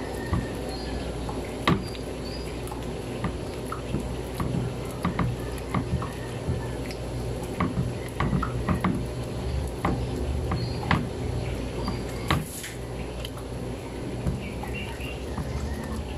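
Spatula pressing and smearing freshly churned butter on a wooden cutting board to squeeze out the leftover buttermilk: irregular soft wet squelches and clicks, a louder one about twelve seconds in, over a steady low background noise.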